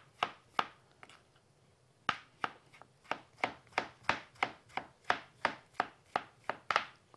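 Knife slicing tomatoes thinly, each cut ending in a tap of the blade on a plastic cutting board. A few cuts, a short pause about a second in, then a steady run of about three cuts a second.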